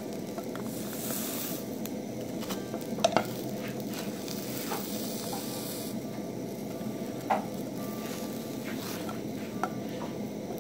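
Burger buns sizzling steadily in a nonstick frying pan over low heat, toasting to dry out buns that were moistened with water, while a wooden spatula presses and shifts them. A few sharp knocks of the spatula against the pan, the loudest about three seconds in.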